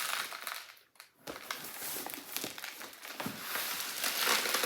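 Loose birdseed sliding and pattering inside a cardboard shipping box as the box is tipped, a dense crackling hiss that sounds like a rain stick; the seed package inside has a hole in it. The sound breaks off briefly about a second in, then runs on.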